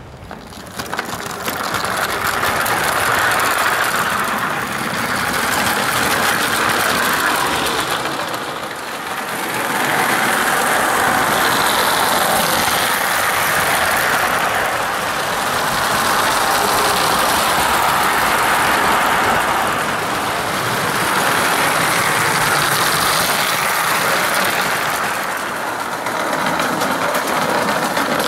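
Clockwork motor of a Bassett-Lowke O gauge tinplate locomotive running, its gears grinding, with the train's wheels running along the rails. The sound swells and eases as the train moves round the layout, with a brief dip about a third of the way through.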